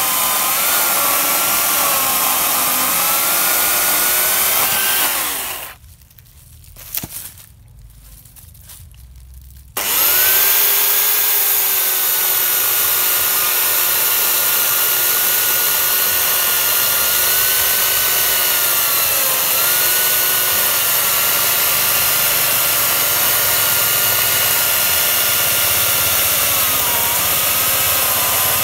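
Makita UC4041A 1800 W corded electric chainsaw running and cutting through a log. The motor winds down and stops about five seconds in, then starts abruptly about four seconds later and runs steadily again, its pitch dipping briefly twice.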